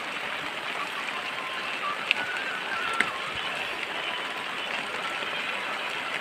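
Steady rain falling, a constant hiss of drops, with two sharp ticks about two and three seconds in.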